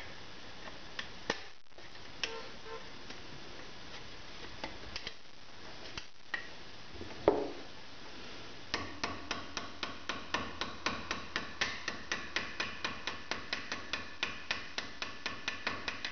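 A small hammer peening a copper rivet set through a steel plate resting on a steel block: light, even taps at about four a second, starting about nine seconds in. Before that come a few scattered clicks and one louder knock.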